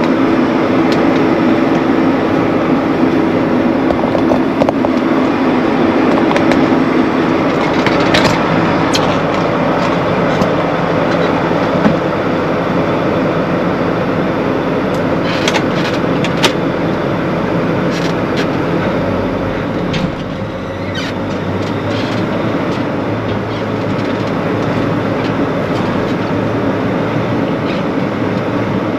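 Heavy farm harvest machinery running steadily and loudly, with scattered sharp rattles and clicks.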